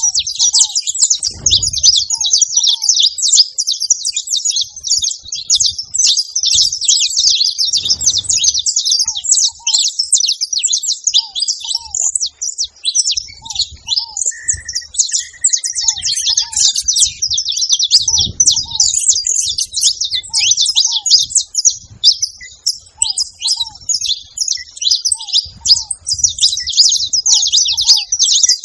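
A group of saffron finches chirping and singing together in a dense, unbroken chatter of overlapping high notes. Under it, a lower, short, falling call repeats about once a second.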